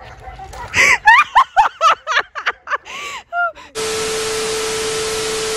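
A quick run of about eight short, sharp, high-pitched cries, then, about four seconds in, a sudden switch to loud TV-static hiss with a steady tone under it.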